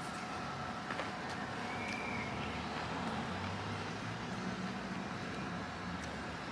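Steady outdoor road-traffic noise, with a low engine hum growing louder through the middle as a vehicle passes.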